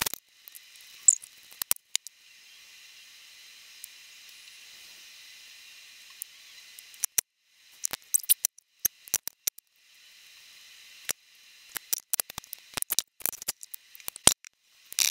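Sped-up handling sounds of bassoon reed wrapping at a wooden table: scattered sharp clicks and taps of tools and cane, with stretches of a faint steady hiss. The clicks come thick about halfway through and again near the end.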